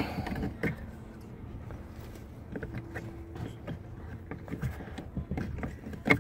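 Scattered light clicks and knocks of plastic and metal parts as a replacement parking-brake release handle is worked into place, with a sharp click near the end, over a steady low hum.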